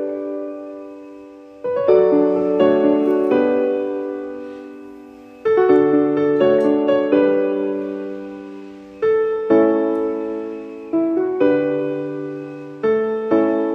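Background piano music: a slow, gentle piece of struck chords and notes that ring and fade.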